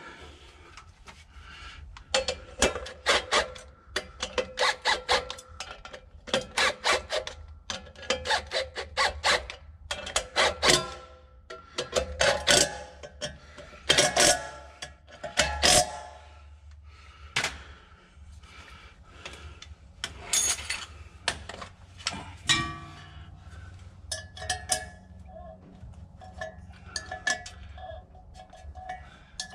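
Cordless power tool run in repeated short bursts of about a second each, driving the fasteners on the hub of a generator's squirrel-cage blower wheel. The bursts stop about two-thirds of the way through.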